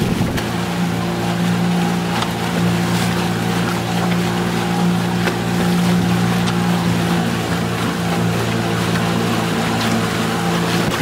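A boat's engine running at a steady speed, a constant hum over wind and water noise.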